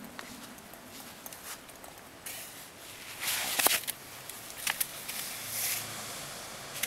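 Scuffing and rustling on grass as a dog grabs a foam pool noodle and carries it off, with scattered light clicks and a louder rustling burst a little past the middle.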